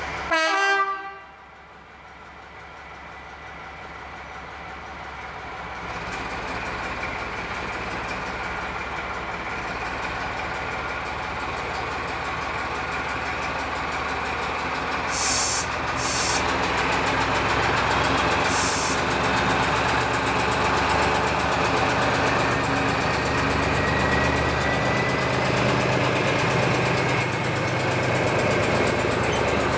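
British Railways Class 14 diesel-hydraulic locomotive D9531 gives a short horn blast at the start, then its Paxman Ventura diesel engine drones steadily louder as it approaches hauling coaches. A few short hisses sound around the middle.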